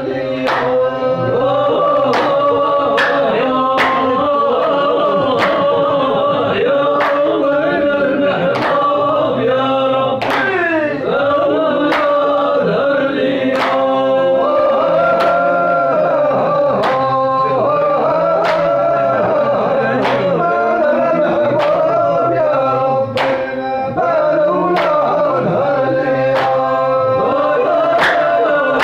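A group of men singing a traditional folk song together, kept in time by steady handclaps a little over one a second.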